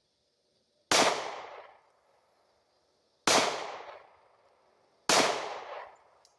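Three shots from a Glock 43X 9mm pistol, the first about a second in, then about two and a half and two seconds apart, each with a ringing tail that dies away over about a second.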